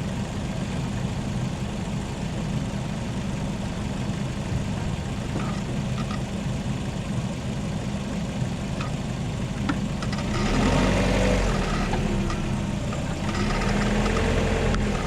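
LADA Vesta's 1.8-litre four-cylinder engine idling with the hood open, with a few light clicks as the AMT robotized gearbox's Sachs actuators work. About ten seconds in the car creeps forward in first gear, the engine note rising with a faint gear whine, and shortly before the end it moves again in reverse; the actuators shift without any squeak.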